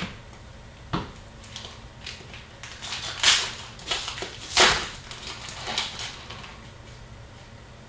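Hockey card packs and cards being handled: a few short crinkling, rustling bursts, the loudest two in the middle.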